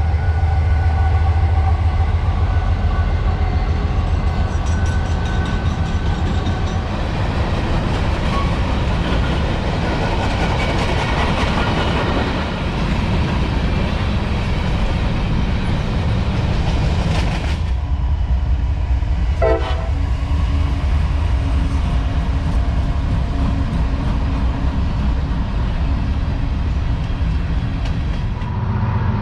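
Freight train running by: the deep rumble of diesel locomotives and rolling freight cars on the rails. The sound changes abruptly a little past halfway, as another train passes.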